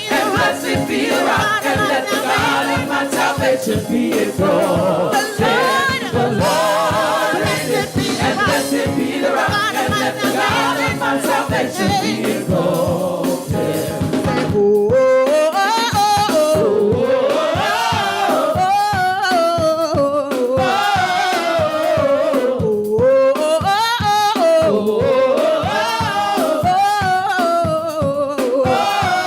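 Gospel praise team singing with instrumental accompaniment and a steady beat. About halfway through, the full group gives way to one lead voice singing long, gliding runs over the beat.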